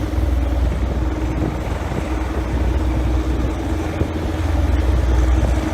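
Train running along the track: a steady low rumble with a faint hum above it and a few light clicks.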